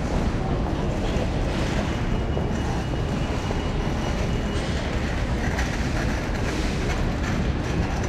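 Steady street noise from an electric scooter riding on wet city streets: wind buffeting the handlebar microphone, with tyre and traffic noise. A faint high whine is heard in the first half and stops about halfway.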